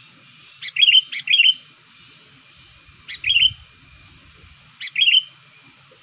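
Sooty-headed bulbul giving short, bright chirping call phrases: two in quick succession about a second in, then one around three seconds and another near five seconds.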